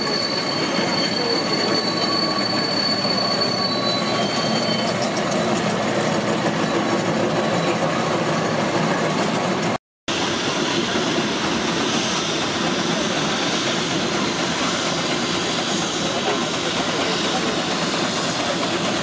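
Steam traction engines running across a showground arena: a steady mechanical clatter and rumble, with a thin high squeal over it for the first few seconds. The sound cuts out for a moment about halfway, then continues as a Garrett steam tractor hauls a loaded trailer.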